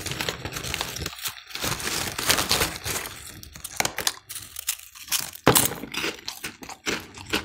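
Foil snack bag crinkling as a hand rummages in it, then crunchy puffed snacks being bitten and chewed, a dense run of sharp crackles and crunches.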